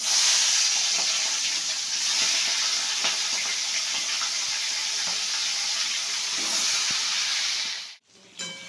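Tiger prawns sizzling as they fry in hot oil in a pan: a loud, steady hiss that cuts off suddenly near the end.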